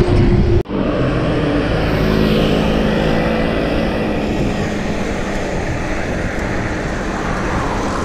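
Steady road traffic from cars and motorcycles on an expressway, heard from a bicycle riding alongside, with a passing vehicle's engine hum. The sound breaks off for a moment about half a second in.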